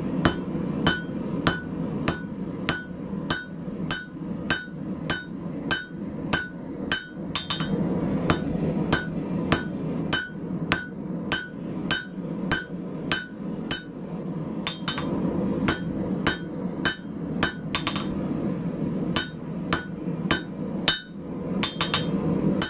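Blacksmith's hammer blows on hot 8 mm rebar over a steel anvil, about two to three a second with a few brief pauses, each strike ringing. He is drawing the bar out very thin. A steady low hum from the running forge lies underneath.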